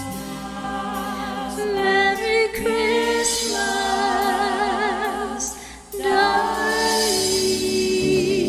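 Woman singing long, held notes of a slow Christmas ballad with vibrato over backing music. The voice stops briefly about six seconds in, then comes back on a new held note.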